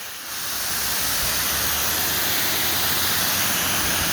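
Pressure washer's high-pressure water jet spraying onto slate pavers, coming up about a third of a second in as a steady loud hiss, with the machine's low engine hum underneath. It is blasting off mould that has been pre-treated with chlorine and detergent.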